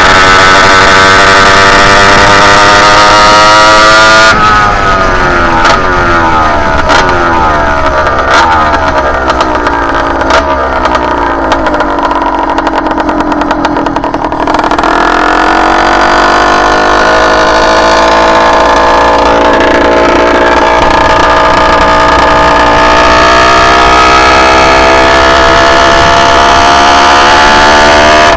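Two-stroke CNC Athena motorized-bicycle engine under way, revving high, then falling in pitch as the throttle comes off about four seconds in. It then pulls back up steadily. The engine is jetted rich for break-in and breaks up at the top end on the main jet.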